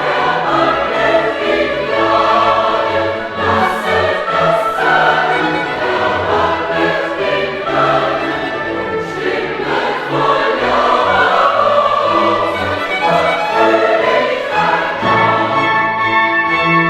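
A choir singing classical sacred music with orchestral instruments accompanying.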